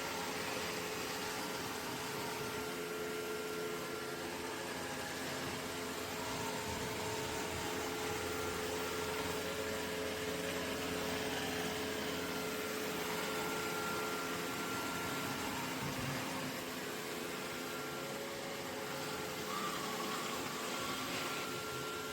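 Dreame L10s Pro Gen 3 robot vacuum-mop running: a steady motor hum with a steady mid-pitched whine over it.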